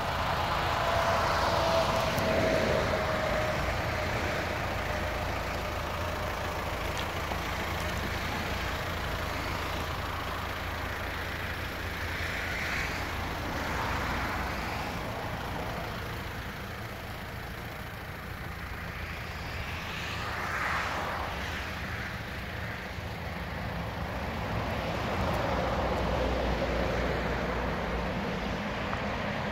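Road traffic passing by, swelling and fading several times over a steady low rumble, with a falling pitch in the first few seconds.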